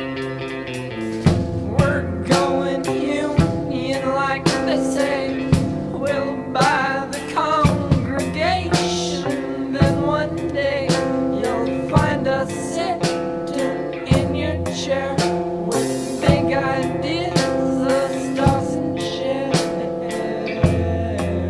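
Indie rock song playing: a drum kit beating steadily under guitars, with a sung vocal.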